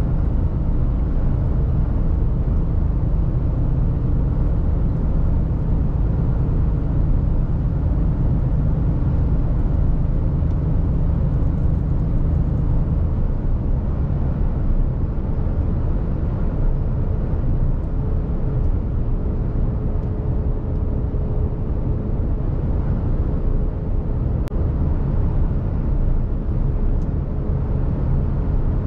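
Steady low drone of a Mercedes-Benz Actros truck at motorway speed, heard inside the cab: engine and tyre noise with a faint constant whine. About thirteen seconds in, part of the deep hum drops away as the truck slows slightly.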